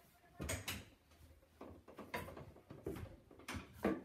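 A handful of irregular knocks and clunks, about six in four seconds with the loudest near the end, as household things are handled and moved about.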